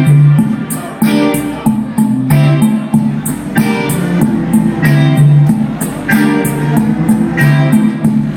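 Live guitar music with no singing: chords strummed in a steady, even rhythm, changing every second or so.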